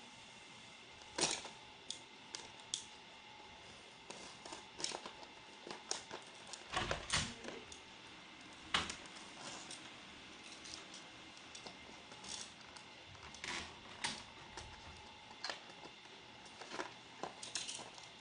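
Red box cutter slicing and scraping at a small cardboard box, giving irregular clicks and scratchy scrapes, a little louder around seven and nine seconds in.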